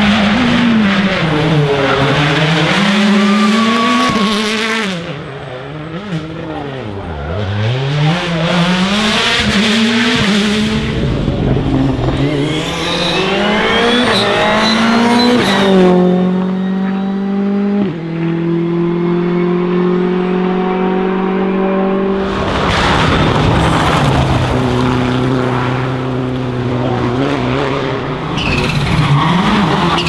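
Rally cars driven hard past the microphone, one after another: engines revving up and down through gear changes and lifts, with the engine note sometimes held steady at high revs. The sound changes abruptly every few seconds as one car gives way to the next.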